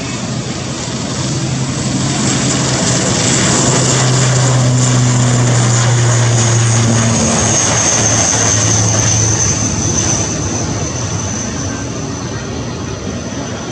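ATR 72-600 turboprop rolling past on the runway: a deep, steady propeller drone under a high turbine whine. The sound swells to a peak midway and eases off near the end, the whine dropping slightly in pitch as the aircraft goes by.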